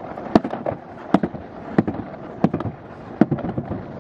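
Alpine slide sled running down its track, a steady rumble broken by sharp clacks about every two-thirds of a second as it crosses the seams between track sections.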